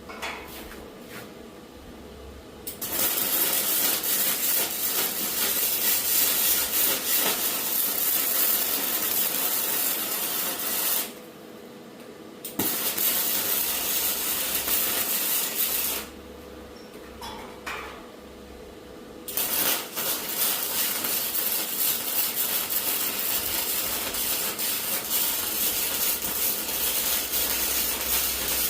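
Arc welding: three long, crackling welding passes of about eight, three and nine seconds, with short pauses between them and a steady hum underneath.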